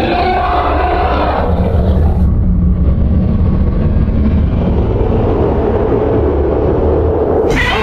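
A fan-made Godzilla sound effect: a deep, steady low rumble with nearly all its weight in the bass, the higher part dying away after about two seconds. A brighter, sharper sound cuts in abruptly near the end.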